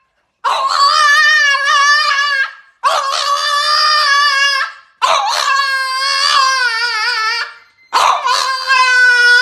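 A French bulldog howling: four long, wavering, pitched calls of about two seconds each, with brief breaks between them.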